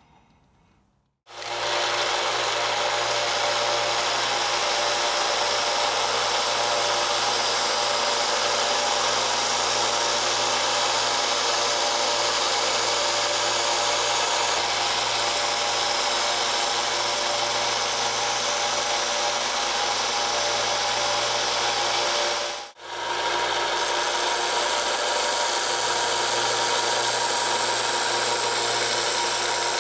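Narrow-belt bench sander running, with a steel cleaver blade held against the abrasive belt: a loud, steady grinding hiss over the motor's hum. It starts about a second in and cuts out for an instant near the end before running on.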